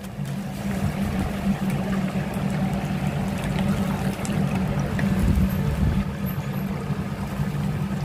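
Whole chickens deep-frying in a stall fryer: the oil sizzles and bubbles in an even hiss over a steady low hum.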